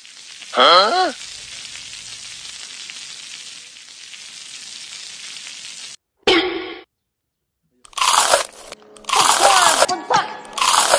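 Loud, crunchy bites into a hard brick-shaped edible prop cake, in several crunches over the last three seconds, with vocal sounds among them. Before that, a short gliding voice-like sound and then a steady hiss of about five seconds.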